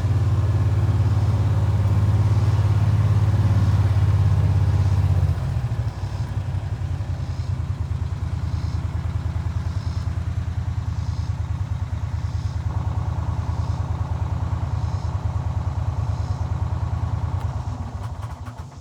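Engine of a small farm vehicle running as it is ridden. About five seconds in it drops to a lower, pulsing idle, and it cuts off at the end.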